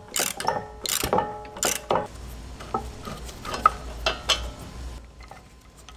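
Metal tools and hardware clinking during brake caliper removal: three sharp clanks that ring briefly in the first two seconds, then lighter scattered clicks and rattling.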